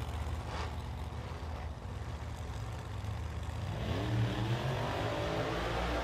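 Pro Modified drag cars' V8 engines idling with a lumpy, pulsing rumble. About three and a half seconds in, an engine revs, rising in pitch, and holds at the higher speed.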